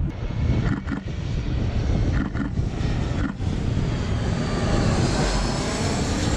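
Jet airliner passing low overhead, its engine noise filling out and shifting in pitch over the second half.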